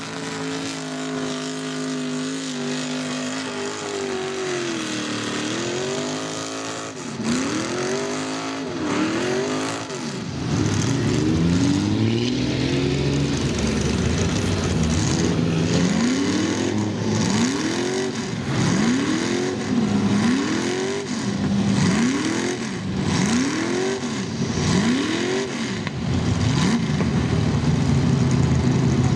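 Lifted mud truck's engine running hard through a mud pit, then revving up over and over, about once a second, as the bogged-down truck churns its big tyres in deep mud. It ends on a steady, held high rev.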